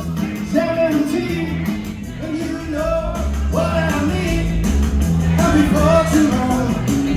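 Live rock-and-roll band playing with a vocalist singing over a steady bass line.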